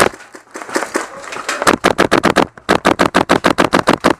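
GHK G5 gas-blowback airsoft rifle firing full-auto, rapid sharp shots at about ten a second. A string of shots starts about a second and a half in, breaks off briefly, then runs on.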